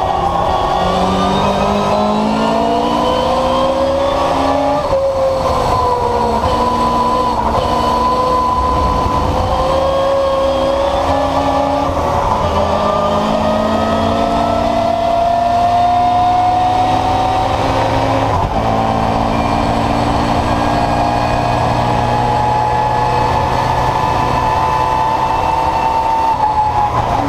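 Historic touring race car's engine heard from inside the cabin, at full throttle along a straight. The pitch climbs slowly through the gears, with an upshift about five seconds in and further changes later, then starts to drop right at the end as the driver lifts.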